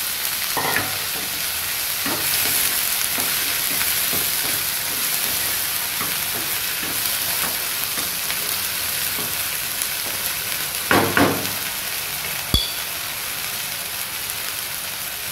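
Chopped okra and onion sizzling in hot oil while a wooden spatula stirs them, scraping and tapping on the pan. There are a few louder knocks about eleven seconds in, then a single sharp click.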